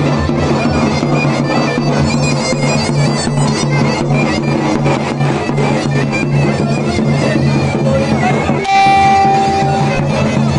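Davul and zurna playing a horon dance tune: the shrill, reedy zurna over steady davul drum beats. About nine seconds in the drum stops for a moment under one long held high note.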